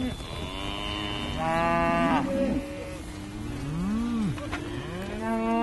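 A herd of cows mooing: several long moos overlapping one another, each rising and falling in pitch.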